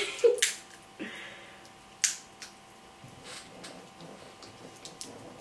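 Crab shells cracking and snapping as crab legs are broken open and picked by hand. There are a few sharp cracks right at the start and about two seconds in, with quieter picking and peeling between.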